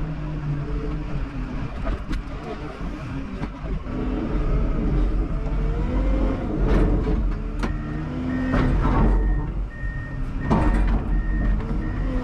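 Diesel engine of a Komatsu WA320 wheel loader running and revving up and down, heard from the cab as it travels with a steel trench plate on its forks. There are several knocks and rattles in the second half, and a backup alarm starts beeping steadily about eight seconds in.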